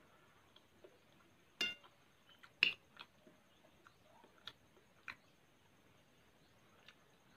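A metal spoon clinking against a glass bowl, several short, sharp clinks spread over a few seconds, with quiet chewing of siomay between them.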